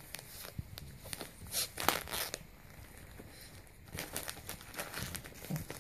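Gift wrapping paper crinkling and tearing as a Shih Tzu puppy chews and paws at a wrapped present, in irregular bursts with a quieter pause in the middle.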